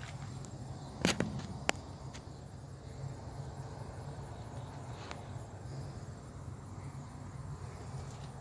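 Low steady background rumble with a few sharp clicks or taps, the loudest about a second in and a couple more soon after.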